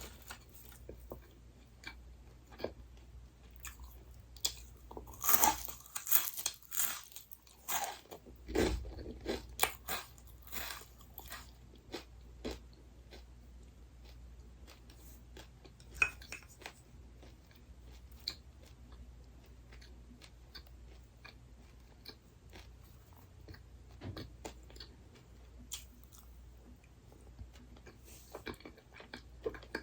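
Close-miked eating sounds: crunchy food bitten and chewed, with a dense run of loud crunches about five to eleven seconds in, then quieter, sparser chewing.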